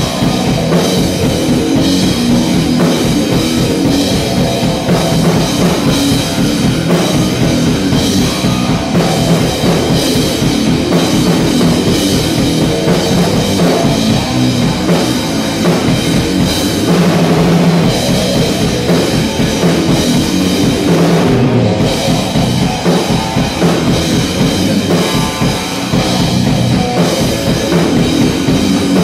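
A rock band playing live: electric guitar riffing over a full drum kit, loud and continuous with a steady beat.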